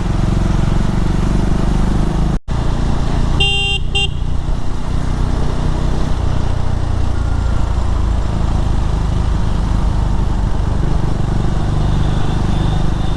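Riding a KTM Duke 390 motorcycle through traffic: its single-cylinder engine and the wind make a steady low rumble. A vehicle horn honks twice in quick short blasts about three and a half seconds in.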